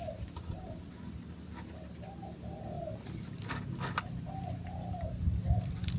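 Spotted dove cooing: short phrases of low, rounded coos, one as the clip opens, another about two seconds in and another about four and a half seconds in. A few light clicks come just before the last phrase.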